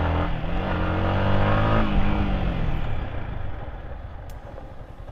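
Yamaha MT-15's single-cylinder motorcycle engine under way: the revs climb for about two seconds, then drop off and the engine sound fades as the bike slows.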